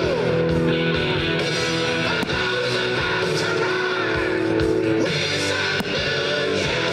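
Guitar-driven rock music playing steadily.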